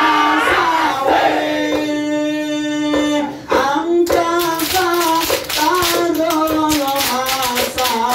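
A male group sings sholawat in ISHARI hadrah style for the mahallul qiyam, the standing part of the prayer, with voices together and a long held note. About four seconds in, sharp rhythmic hand claps join the singing.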